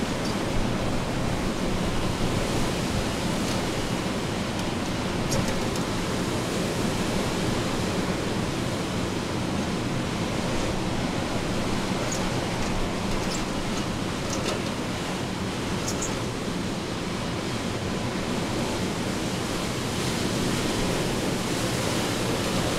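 Hurricane wind and rain making a steady, even rush of noise, with a few faint ticks.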